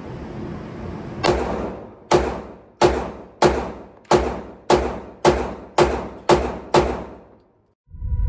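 A 9mm pistol fired ten times in steady succession, a shot about every 0.6 seconds, each sharp crack trailing off briefly. Music comes in near the end.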